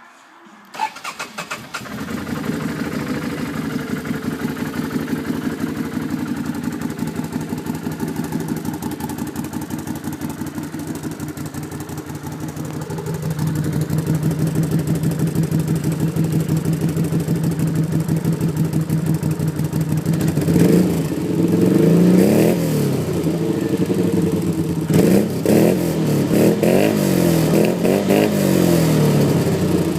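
2010 Can-Am Outlander 500 ATV's V-twin engine through an HMF aftermarket exhaust: it starts about a second in and settles into a steady idle, which gets louder about 13 seconds in, then is revved several times in quick throttle blips from about 20 seconds on.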